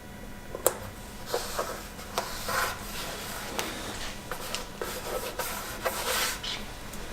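Sticker being handled and rubbed down onto a board: a sharp click a little over half a second in, then a series of short rubbing, scraping swishes with small ticks.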